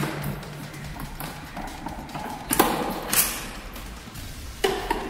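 Hands handling the plastic casing and hose of an opened Aquaguard Classic water purifier, with sharp knocks and scrapes about two and a half, three and four and a half seconds in. Faint background music runs underneath.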